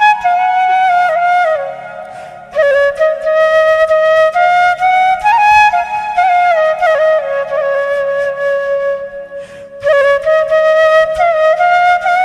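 Background music: a flute playing a slow, ornamented melody, with two short breaks between phrases, about two seconds in and again near ten seconds.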